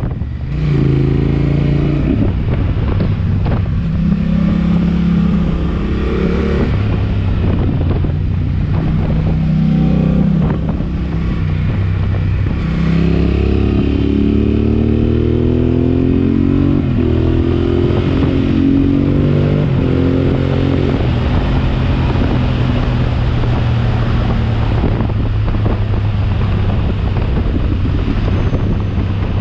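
Yamaha Ténéré 700's parallel-twin engine through a Dominator HP1 aftermarket exhaust, ridden under way: the revs climb and drop again and again as the bike accelerates and shifts gears, then hold fairly steady for the last several seconds.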